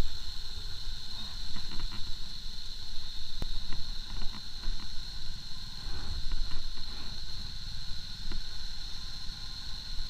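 Sport motorcycle ridden slowly over a broken, wet road: an uneven low rumble with scattered knocks and rattles, and a steady high-pitched whine above it.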